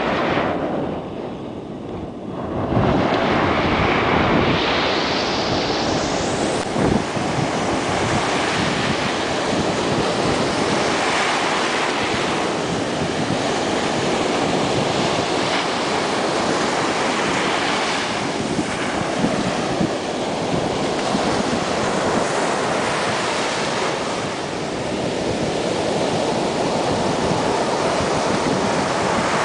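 Surf breaking and washing up the sand in a continuous rush that swells and eases as waves come in, with wind buffeting the microphone.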